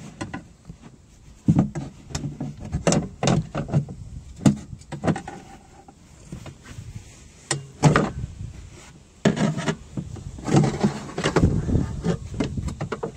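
Clusters of sharp knocks, clicks and scraping inside a car door as the exterior door-release cable is worked off its bracket.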